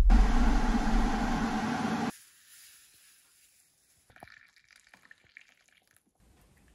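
Electric kettle boiling, a loud steady rushing that cuts off abruptly about two seconds in. Then near silence with a few faint ticks.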